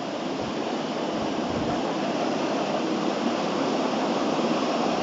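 Steady rushing hiss of room background noise that grows slightly louder, with a couple of faint low bumps in the first two seconds.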